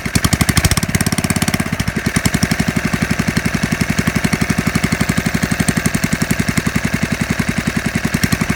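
Small 1.7 kW portable generator engine running steadily with an even, fast pulsing rhythm; its tone shifts slightly about a second in.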